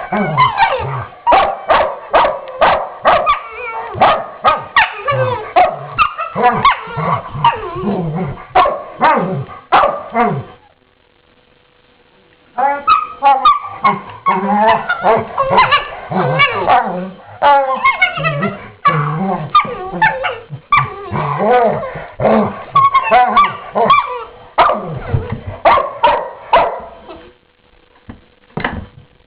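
Two Labrador retrievers play-growling and barking at each other in a near-continuous stream of growls, barks and yips, with a pause of about two seconds partway through.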